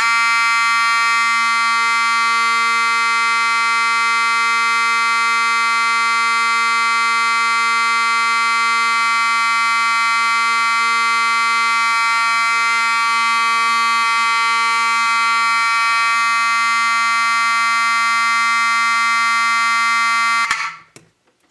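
Wheelock 34T-24 fire alarm horn sounding a loud, steady, clean buzz with no skipping, as no strobe is wired in with it. It stops abruptly about twenty seconds in.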